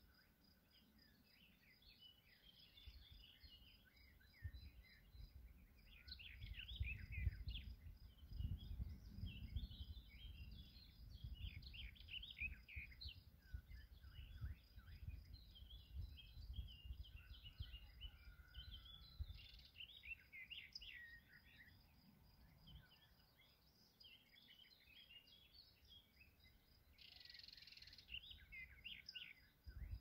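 Several birds chirping and singing over one another, with a steady, fast, high-pitched insect trill underneath. A low gusty rumble comes and goes through the first half.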